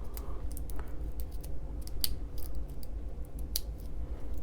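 Small sharp metallic clicks and rattles from a stainless steel Borealis Seastorm watch bracelet and clasp being handled on the wrist, with two louder clicks about two and three and a half seconds in.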